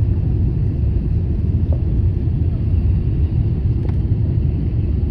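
Airliner landing: a steady low rumble that holds an even level throughout.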